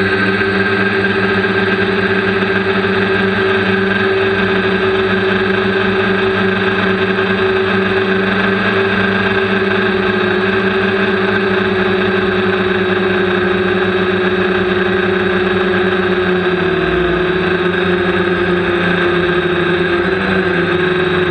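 Quadcopter's motors and propellers running steadily in flight, heard up close from a camera mounted on the craft. The hum shifts slightly in pitch twice near the end.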